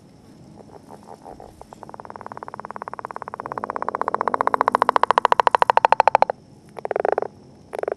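Northern leopard frog giving its snore-like breeding call: a long rattle of rapid pulses that grows louder for several seconds and breaks off suddenly, followed by two short croaks.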